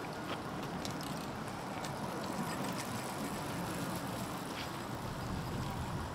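Outdoor city street ambience heard on a walk: a steady wash of noise with scattered light clicks.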